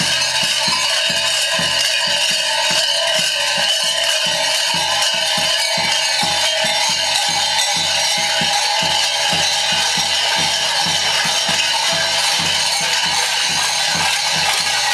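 Loud folk music: a drum beating a fast, steady rhythm of about three to four strokes a second under a dense, continuous ringing and jangling that holds steady throughout.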